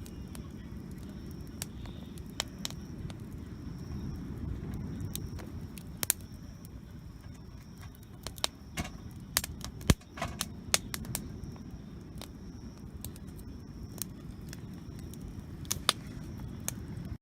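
Wood campfire burning, with irregular sharp crackles and pops from the burning wood over a steady low rumble.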